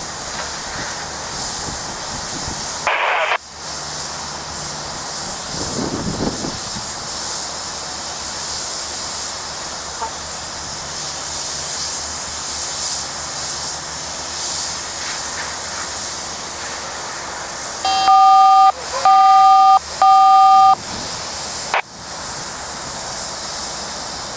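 Double-stack intermodal well cars rolling past on the rails, a steady loud hiss of wheels on track. About 18 seconds in, three short electronic beeps sound in quick succession.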